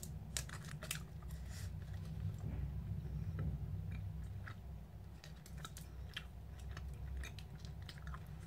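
A person biting into and chewing a Cow Tales chewy caramel candy with a cream centre: soft, irregular sticky mouth clicks, busiest about the first second, over a low steady hum.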